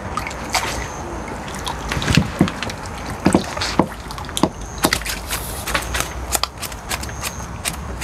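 A long-handled landing net being worked at the water's edge: irregular clicks, knocks and small splashes, over a steady low hum.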